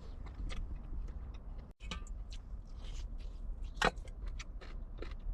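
Someone eating hotpot: scattered light clicks of utensils against a bowl and pot, with chewing, over a low steady rumble. One sharper click comes a little under four seconds in.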